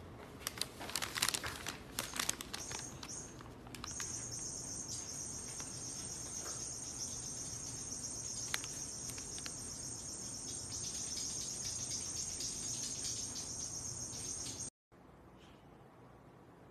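Crackling and clicking for the first few seconds, then a steady, high-pitched insect chorus for about ten seconds that cuts off abruptly, leaving faint room tone.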